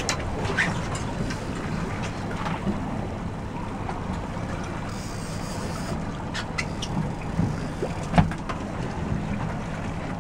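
Boat's outboard motor running steadily at idle, with wind buffeting the microphone. A sharp knock comes about eight seconds in.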